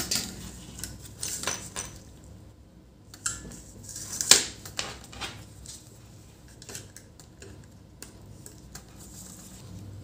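Scattered clicks and light metallic clatter as a laptop motherboard, its heatsink and CMOS coin-cell battery are handled on a wooden table, with one sharper, louder click a little over four seconds in.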